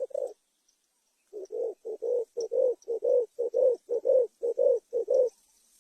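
Spotted dove cooing: one coo at the start, then a quick run of about eight paired coos, each a short note followed by a longer one, that stops shortly before the end.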